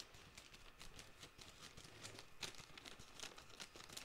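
Scissors snipping along the top of a plastic poly mailer bag, with faint crinkling of the plastic; a few short, quiet snips and crackles.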